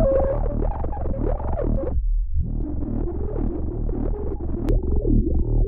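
Electronic loop with a pulsing bass line, played through FabFilter Volcano 3's resonant, self-oscillating filter, whose cutoff sweeps up and down in quick repeating swoops. About two seconds in, the filtered upper part cuts out for a moment and returns with its sweeps lower in pitch.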